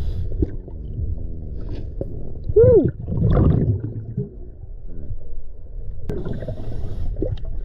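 Muffled underwater sound of a scuba diver's exhaled bubbles from his regulator, heard through the camera housing: a low gurgling rumble, with a louder burst of bubbling about two and a half seconds in that lasts about a second and a half.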